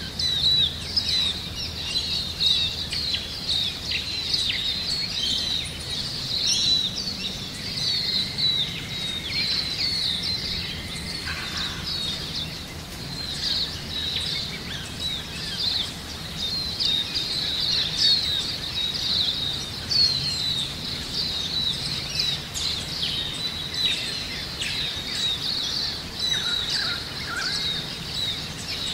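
Many small birds chirping at once, a steady chorus of quick, overlapping high calls.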